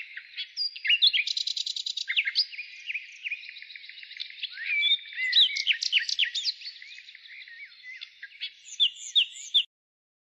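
Birds chirping and singing: a busy run of quick chirps and short rising and falling whistles that cuts off suddenly near the end.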